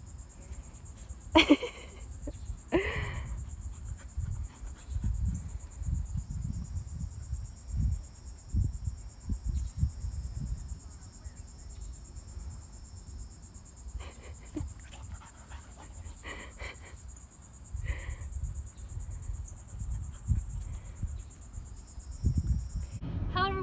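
Steady high-pitched insect chorus, crickets or similar summer insects, with an uneven low rumble underneath; two short sharp sounds come in the first few seconds. The insect song stops abruptly near the end.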